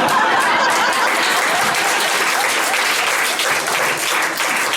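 Live audience applauding steadily, a dense mass of hand claps.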